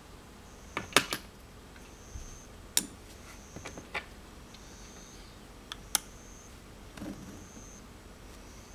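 Small magnetic toy pieces clicking as they are set onto a magnetic ornament stand and onto each other: a handful of sharp clicks, loudest about a second in.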